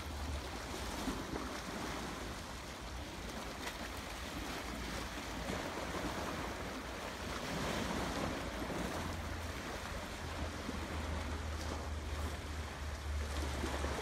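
Small Adriatic waves lapping and splashing against a rocky shore and seawall, a steady wash of surf with a low wind rumble underneath.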